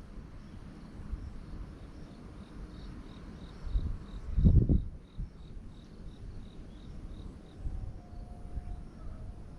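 An insect chirping steadily, about four short high chirps a second, over a low rumbling noise that swells briefly and loudly about halfway through.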